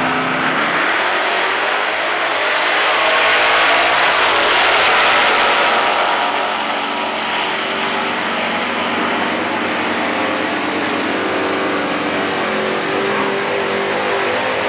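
Two nostalgia super stock drag cars launching side by side at full throttle, their V8 engines revving up through the gears, the pitch climbing again with each gear. The engines are loudest a few seconds in, then keep running flat out as the cars pull away down the quarter mile.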